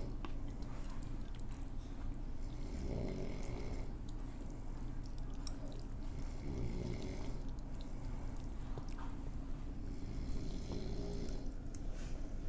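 Loud snoring in a slow, repeating cycle, three breaths about four seconds apart, with a few sharp clicks between them.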